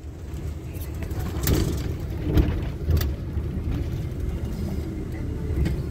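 Car on the move heard from inside the cabin: a steady low rumble of engine and road noise, with a few short knocks.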